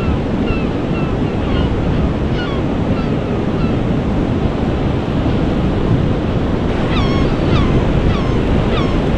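Steady rush of surf and wind buffeting the microphone on a beach. Faint short high chirps repeat about twice a second, most clearly near the end.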